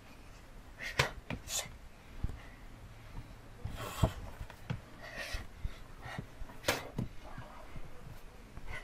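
A child's sharp breaths and bare feet thudding on a rubber mat during quick kicks and punches: about half a dozen short hits and exhalations, the strongest about four seconds in and again near seven seconds.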